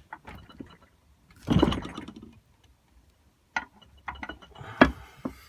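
Metal knocks and clatter of a small scrap pipe being clamped in a bench vise and bent into a handle: a rough burst of noise about a second and a half in, then a few sharp knocks, the loudest near the end.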